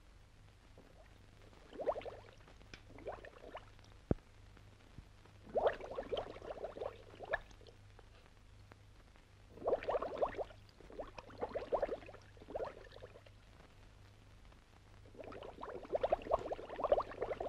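Underwater bubbling from a diver's breathing: gurgling bursts of exhaled air bubbles every few seconds, each lasting one to three seconds, with a single sharp click about four seconds in.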